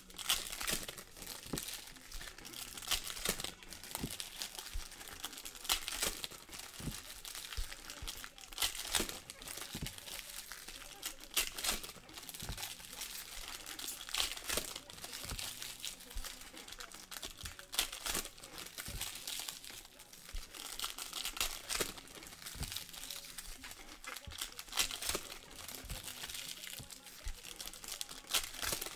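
Shiny foil wrappers of Panini Select soccer card packs crinkling and tearing as they are opened by hand, a dense continuous crackle with sharper rips every second or two.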